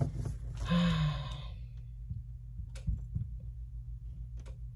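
A woman's breathy, voiced sigh about a second in, then a few faint clicks, over a steady low hum.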